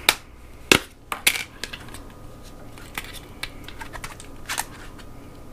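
Plastic tub of cream cheese being opened by hand: a few sharp clicks of the snap-on plastic lid, the loudest in the first second and a half, then lighter ticks and crinkles.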